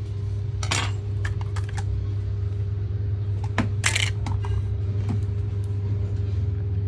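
Scattered light clicks and clatter of small hard objects being handled, over a steady low electrical hum. The strongest clatter comes a little before halfway, with a smaller one near the start.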